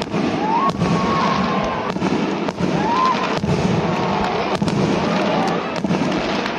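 Fireworks display: rapid, continuous bangs and crackling from bursting shells, with a couple of short rising whistles.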